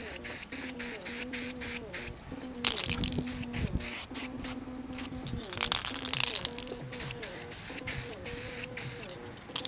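Aerosol spray can of matte black paint hissing in two short bursts, about three seconds in and again around six seconds, as a top coat goes on.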